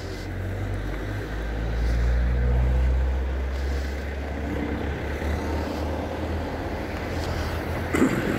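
A car driving past close by: a low engine and tyre rumble that swells to its loudest about two to three seconds in, then slowly fades. A sharp knock sounds near the end.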